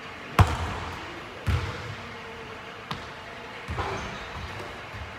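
Basketball hitting a hardwood gym floor: a loud bounce about half a second in, another a second later, then a light tap and one more bounce, each ringing on in the big hall's echo.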